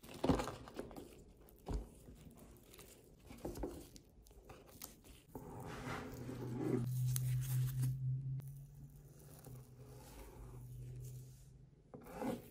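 Sushi knife slicing through a nori-wrapped sushi roll and a block of raw tuna, with sharp knocks of the blade on the cutting board. From about six seconds a steady low drone comes in, loudest for a couple of seconds, and fades out near the end.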